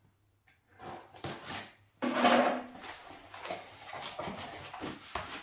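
Cardboard shipping box being opened by hand: a few short scrapes and taps, then a sudden rip of packing tape as the flaps are pulled open about two seconds in, followed by continuous rustling of cardboard and packing material.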